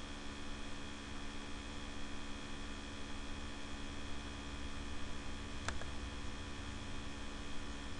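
Steady electric hum from a laptop cooler's fans, several held tones over a constant hiss, picked up by a very sensitive microphone. A single faint click a little over two-thirds of the way through.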